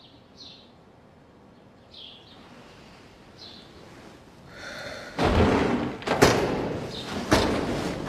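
A bird chirping every second or so, then about five seconds in a sudden loud noise with three heavy bangs about a second apart.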